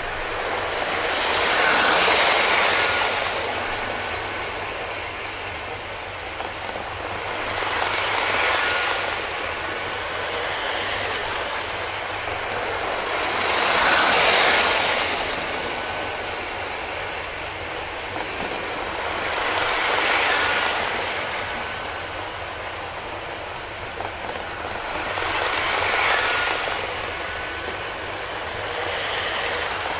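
00 gauge model train running on sectional track, its small electric motor and wheels rattling steadily. The sound swells five times, about every six seconds, as the train passes close by, and is loudest about halfway through.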